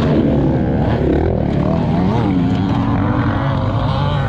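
Off-road dirt bike engine running hard and revving up and down with the throttle, its pitch dipping and climbing several times.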